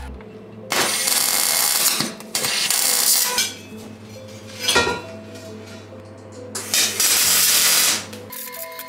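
MIG welder arc crackling and hissing in three short welds of about a second each, laying tack welds on steel. A brief sharp sound comes about halfway through.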